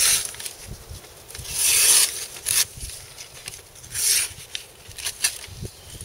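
Stiff paper wrapping rustling and crinkling in several short bursts as it is pulled off a large kukri blade.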